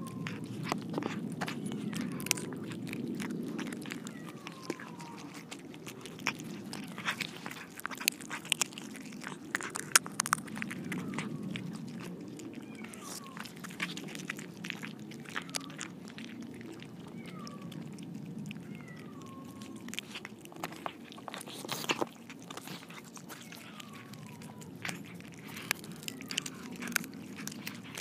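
Several cats eating fish, right next to a close microphone: wet chewing and smacking with dense, irregular crunchy clicks. A few short, high, falling mews come in here and there.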